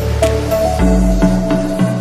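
Electronic background music with sustained synth notes, a bass line and a steady beat; the chord and bass change a little before one second in.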